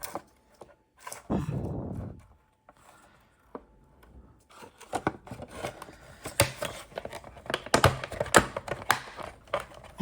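Plastic parts of a car side mirror being handled and pressed together. A brief rubbing rustle comes about a second in, then, after a short lull, a run of light clicks and knocks through the second half.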